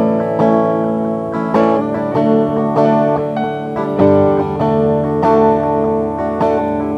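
Instrumental music led by a strummed acoustic guitar, sustained chords changing every second or so.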